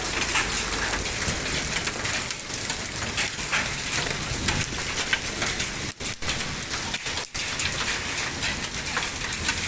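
Hailstorm with heavy rain: a dense, steady hiss of falling water, thick with sharp hits of hailstones striking surfaces.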